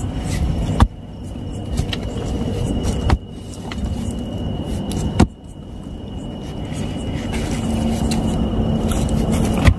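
Pickaxe striking hard, dry earth: four sharp strikes about two seconds apart, with a longer gap before the last, over a steady low rumble.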